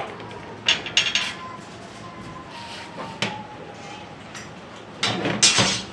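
Iron-tube rocking chair frame parts clanking and knocking as they are handled and set down on a concrete floor, with a longer, louder clatter about five seconds in.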